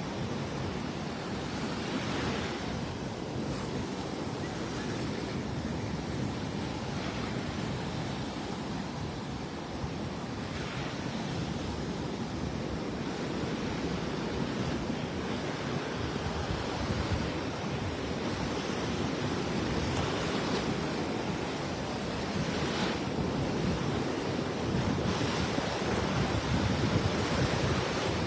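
Surf breaking and washing onto the beach in a steady rush, now and then swelling as a wave breaks, with wind buffeting the microphone.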